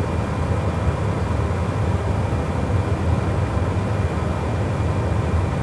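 Steady low hum and rush of the Airbus A320 flight deck's air-conditioning and ventilation, unchanging, with no key presses.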